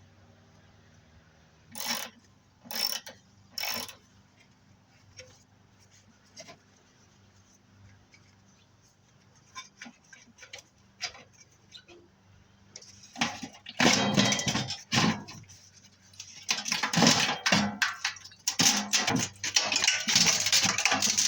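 Hand tools clanking and scraping against the furnace blower's metal housing as the fan motor's bolts are worked on and the motor is tugged at. There are three short bursts a couple of seconds in, then scattered clicks, then a long stretch of dense clattering and scraping over the last eight seconds.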